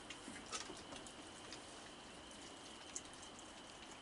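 Faint, steady high-pitched hum with a few soft clicks and taps of raccoons eating and food being handled on a wooden deck.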